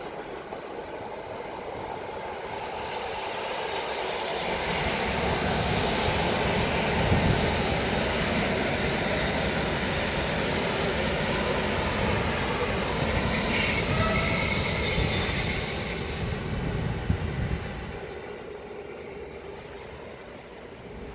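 Blue-and-yellow electric multiple unit running past the platform: its running noise builds as it comes close, a high-pitched wheel squeal rings out from about 13 to 17 seconds in, and the noise then fades as the train moves away.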